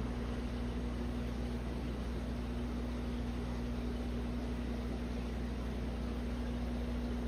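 Steady mechanical hum of aquarium air pumps and filters, a low drone with a constant tone over an even hiss.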